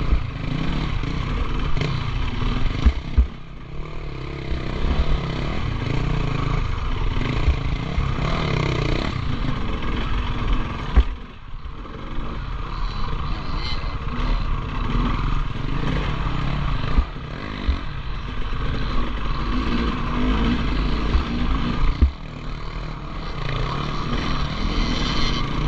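KTM 300 XC-W TPI's two-stroke single-cylinder engine running under load as the bike picks its way up rocky trail, the throttle opening and closing, briefly backed right off twice, about three seconds in and near the middle. Sharp knocks of the wheels and chassis striking rocks come through now and then.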